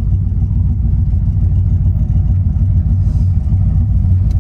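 Twin-turbocharged 383 cubic-inch stroker V8 of a 1955 Chevrolet 3100 pickup, heard from inside the cab, running at low road speed with a steady deep rumble.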